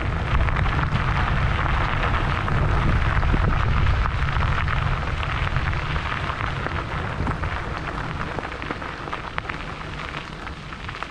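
Wind buffeting the microphone of a moving camera as a steady low rumble, with tyres crackling over a gravel road. It eases off gradually over the second half.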